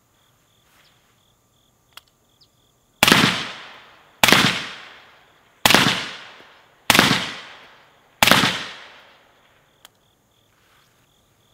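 Five rifle shots from an AR-15-style rifle firing 5.56 mm 55-grain XM193, starting about three seconds in and spaced a little over a second apart. Each shot is loud and trails off in an echo lasting about a second.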